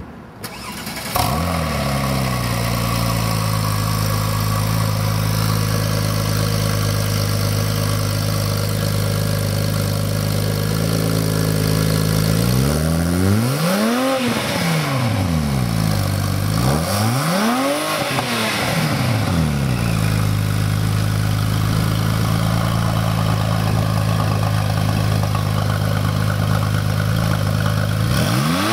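Porsche 997 Turbo twin-turbo flat-six with aftermarket headers and a Tubi exhaust, starting about a second in with a brief flare and settling to a steady idle. It is then revved sharply twice, each rev climbing and dropping back within about two seconds, idles again, and a third rev begins right at the end.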